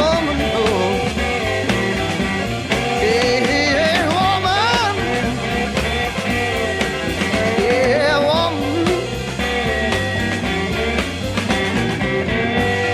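Blues-rock band recording playing an instrumental passage without vocals: a lead line bending up and down in pitch over a steady drum beat and bass.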